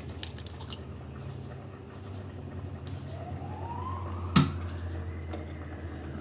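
A faint siren wails in a slow rise and fall of pitch through the second half. Under it, a few light clicks in the first second as an egg shell is pulled apart over a plastic bowl, and one sharp knock about four seconds in.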